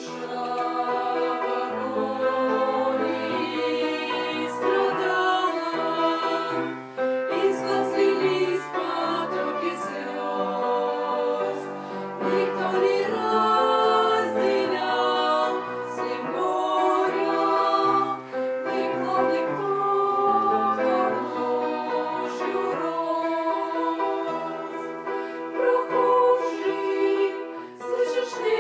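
A group of women singing a song together in harmony, with musical accompaniment.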